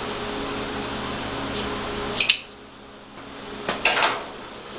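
Hard clicks and clatter of rifle parts being handled on a workbench: a sharp click about halfway through, where a steady background hiss and hum cuts off, then a few more clicks near the end.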